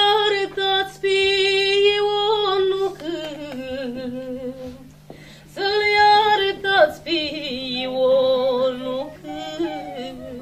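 A woman singing a slow folk melody in two long phrases of held, high notes, the second wavering and ornamented, over a steady low electrical hum.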